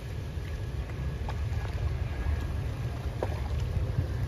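Outdoor riverbank ambience dominated by wind buffeting the microphone, a steady low rumble that rises and falls, with a few faint clicks.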